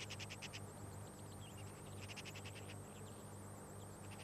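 Faint, rapid high clicking trills from wildlife at a cormorant colony, about ten strokes a second, heard twice: near the start and again about two seconds in. A steady low hum from the old tape recording runs underneath.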